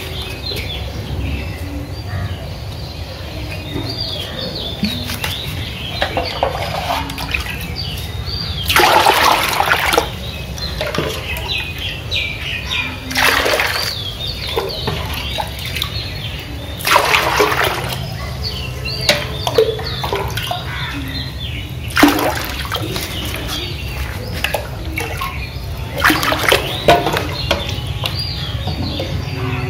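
A live lailontika fish thrashing in a shallow aluminium basin of water, splashing in about five short bursts. Birds chirp throughout.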